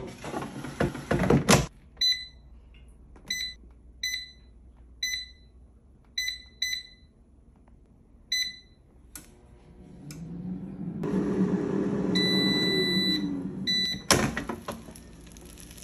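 Cosori air fryer: the basket slides shut with a brief clatter, then a run of short beeps as the touch buttons are pressed. About ten seconds in the fan starts with a rising hum, a longer beep sounds, and a short clatter comes near the end.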